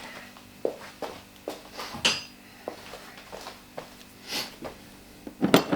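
Scattered light metallic clinks and taps as the stock battery hold-down clamp and its nuts are lifted off and handled.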